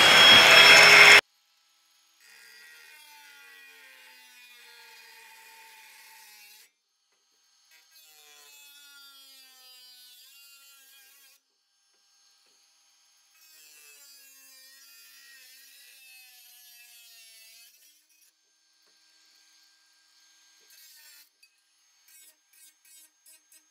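Ridgid angle grinder with a cut-off wheel running loudly, then cutting off abruptly about a second in. After that there are only very faint sounds, with a few soft ticks near the end.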